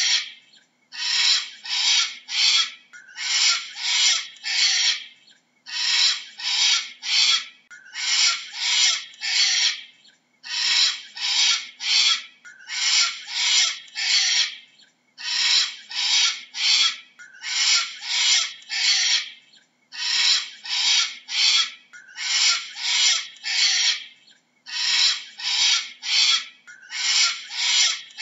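Cockatoo screeching: harsh calls in quick groups of three or four, each group about a second and a half long, repeating in a steady rhythm about every two seconds.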